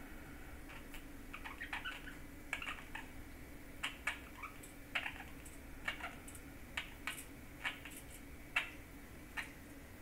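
Budgerigar chattering with its head inside a small hanging bell: an irregular string of short, soft chirps and clicks, about a dozen over several seconds.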